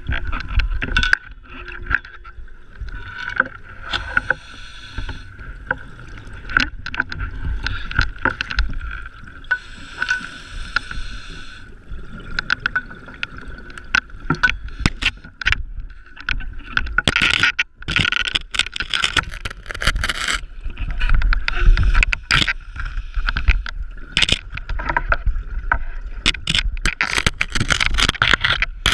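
Underwater sound of a scuba diver breathing through a regulator, with hissing inhales and bubbly exhales every few seconds. Frequent clicks, knocks and scrapes come from hands and gear brushing the rock of a tight cave passage.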